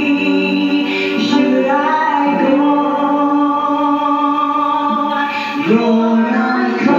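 Gospel song: long held, choir-like sung notes over backing music, sliding to new notes about two and a half seconds in and again near the end.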